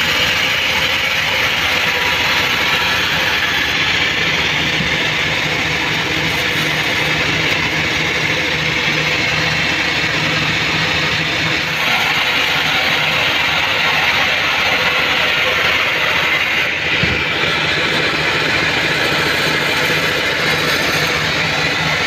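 Vertical band sawmill running steadily, its blade ripping lengthwise through a mahogany log under the hum of the drive motor.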